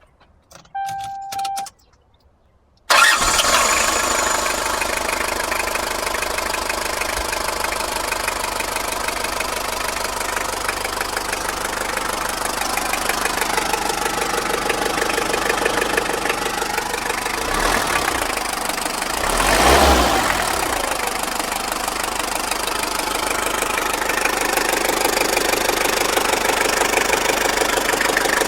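Toyota car engine started about three seconds in, after a short beep, then left idling steadily with the knocking noise it has. The sound rises and falls briefly near twenty seconds in.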